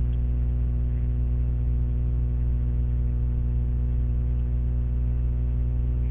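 Steady electrical hum in the recording, a low drone with a stack of evenly spaced overtones that does not change.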